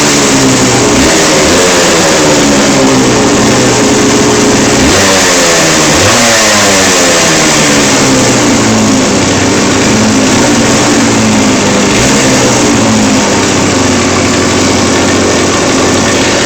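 1989 Yamaha TZR125's single-cylinder two-stroke engine running. Its revs drop back at first, are blipped sharply twice about five and six seconds in, then it settles to a steady idle.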